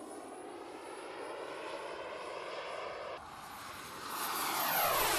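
AMT Pegasus jet turbine of a large model MiG-21 in flight: a rushing roar with a thin high turbine whine. About three seconds in the sound drops suddenly, then grows louder over the last second or so as the whine rises in pitch with the jet coming closer.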